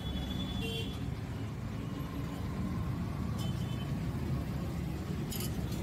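Steady low rumble of road traffic, with a few faint metallic clinks of a steel ladle against the curry pot and serving bowls.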